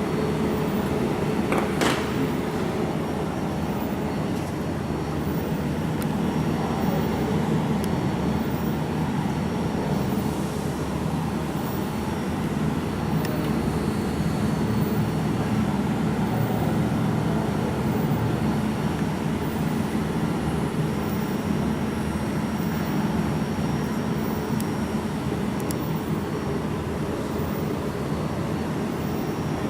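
A steady low machine hum, with one short click about two seconds in.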